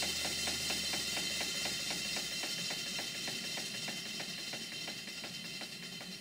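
Stuart Twin Victoria model steam engine running steadily on live steam: a quick, even beat of exhaust and valve-gear clicks over a steady steam hiss. A low hum fades out about two seconds in.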